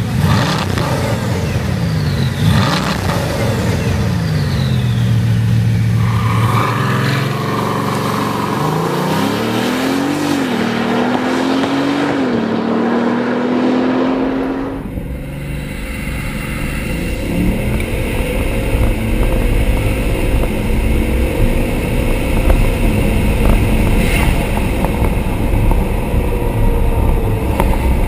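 High-performance car engine revving, its pitch rising and falling, then climbing through several upshifts. About halfway through the sound changes suddenly to a rougher, rumbling engine with more revs.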